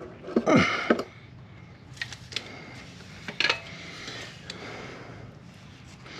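Scattered light clicks and taps of hand work on the sheet-metal footwell while seam sealer is being worked into the seams, a small cluster about a second in and single taps after, over a faint steady low hum.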